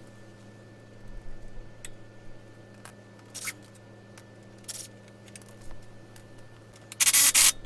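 Hand tools working bolts out of a truck's front wheel hub: scattered short metal clicks and scrapes, and a louder harsh rasp lasting about half a second near the end.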